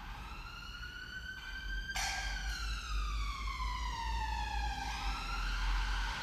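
Emergency vehicle siren wailing, its pitch sliding slowly up and down. It rises at first, gets suddenly louder about two seconds in, falls for about three seconds, then starts rising again near the end. A steady low hum runs underneath.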